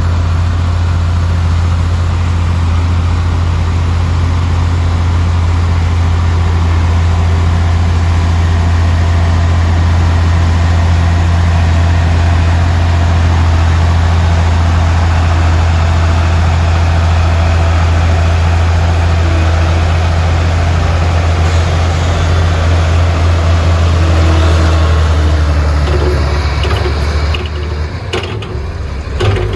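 Heavy diesel engine of earthmoving equipment running steadily with a deep hum, easing off near the end, where a few short knocks are heard.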